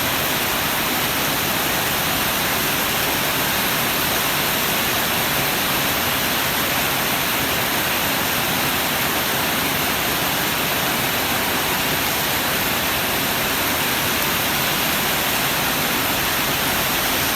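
Heavy storm rain pouring down in strong wind: a loud, steady, unbroken rush of noise.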